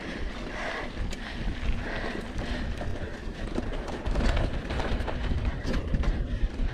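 Mountain bike rolling over a dirt trail: steady tyre and wind rumble on the camera microphone, with scattered clicks and rattles as the bike goes over bumps.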